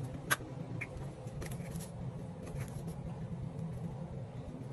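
A clear plastic measuring scoop dipping into a tub of laundry powder and being lifted out, giving a sharp click just after the start and a few faint ticks and scrapes over the next two seconds. A steady low hum runs underneath.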